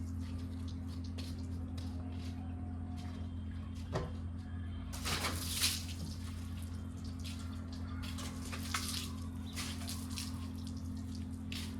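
Water running and splashing, with louder splashes about four and five to six seconds in, over a steady low hum.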